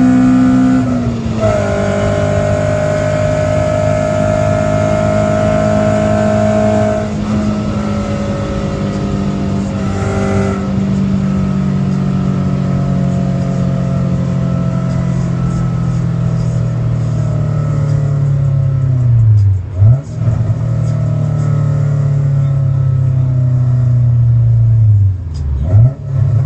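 Honda Civic VTi four-cylinder engine with an HKS aftermarket exhaust, heard from inside the cabin while driving. The engine note sinks slowly over long stretches. About twenty seconds in, and again near the end, it dips briefly and jumps back up, as at a gear change.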